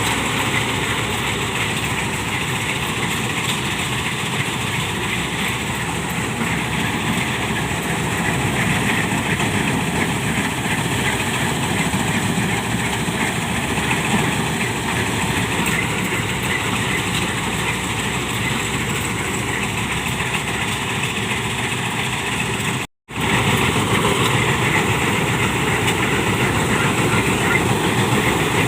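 Combine harvester's diesel engine running steadily, a dense mechanical drone. The sound cuts out for a moment about 23 seconds in, then carries on.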